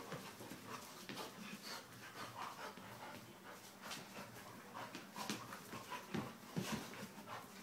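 Two dogs play-wrestling: soft dog vocal sounds and the scuffle of their bodies, with a few light knocks.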